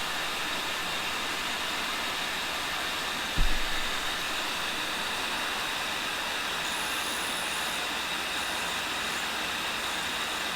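Cincinnati tool and cutter grinder running, its diamond wheel grinding a carbide boring bar with a steady hiss and a faint high whine. A single low thump about three and a half seconds in.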